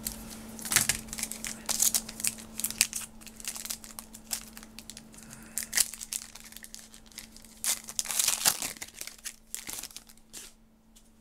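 Plastic wrapper of a Topps trading card pack crinkling and tearing as it is ripped open by hand, in bursts of rustling that are loudest about a second in and again around eight seconds in.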